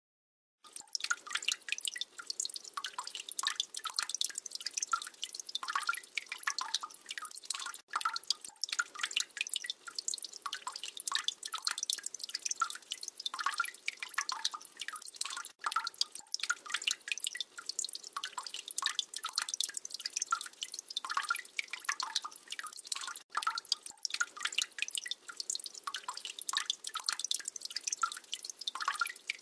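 Looped sound effect of water dripping and plopping: rapid, irregular drops that break off for a moment about every seven and a half seconds, where the loop restarts.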